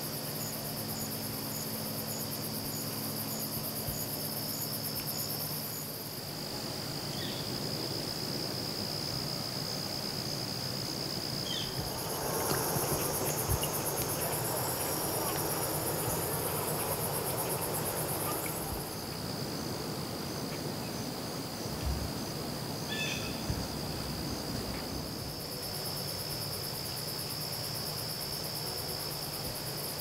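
Chorus of insects trilling steadily, with a higher pulsing trill that comes and goes. A louder stretch of rushing noise runs through the middle, and a few short chirps cut in.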